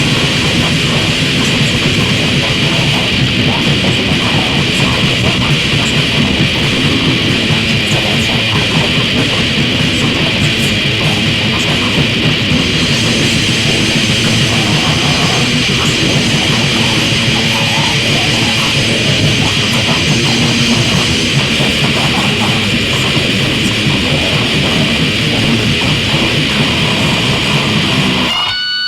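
Death grind / noise grind music: heavily distorted guitars and drums form a dense, chaotic wall of noise. It stops abruptly near the end, leaving a brief high ringing tone.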